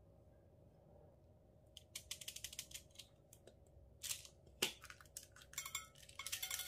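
Small plastic beads rattling and clicking inside a clear plastic container as it is handled and opened, with one sharper click a little past the middle. Near the end the beads clatter out onto the slime.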